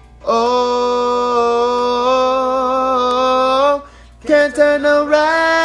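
Four-part a cappella harmony of a gospel hymn, one man's voice multitracked across all parts. It starts with a long held chord with slight vibrato that breaks off just before 4 s, then a short run of quick notes, and a new chord held near the end.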